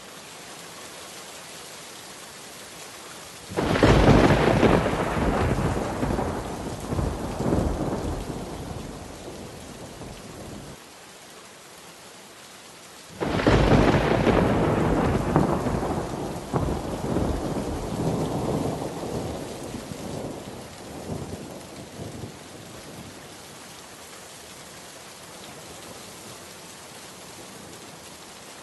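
Thunderstorm: steady rain throughout, with two peals of thunder, one about three and a half seconds in and one about thirteen seconds in. Each starts suddenly and rolls away in rumbles over several seconds.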